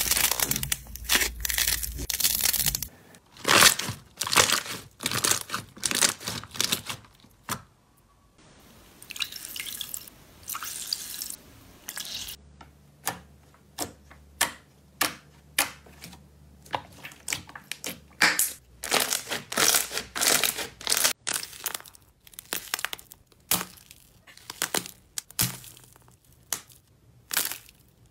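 Slime being pressed and poked by hand, giving a long irregular series of short crackles, pops and wet clicks.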